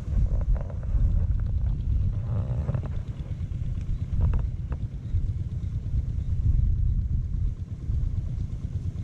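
Wind buffeting an outdoor microphone: a steady, fluctuating low rumble. A brief rustle of clothing close to the microphone about four seconds in.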